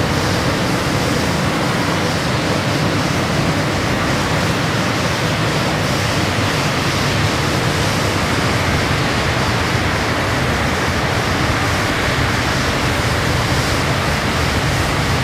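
Blizzard ambience: a steady, even rush of wind noise with no distinct events.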